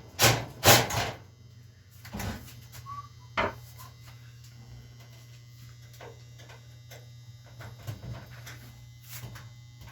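Handling noise: two sharp knocks in the first second, then a few fainter clicks, over a low steady hum.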